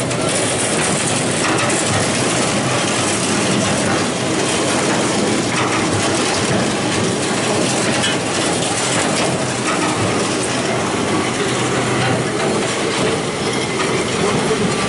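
Wróblewski WK-4 chain manure scraper running, its steel chain and scraper paddles clattering and rattling steadily as they travel along the gutter and over the wheels and inclined elevator.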